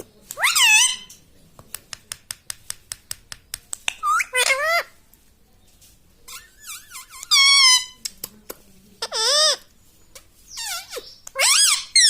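Pet rose-ringed parakeet giving several squeaky, warbling calls that bend up and down in pitch, one longer call in the middle, with a quick run of clicks, several a second, between the first and second calls.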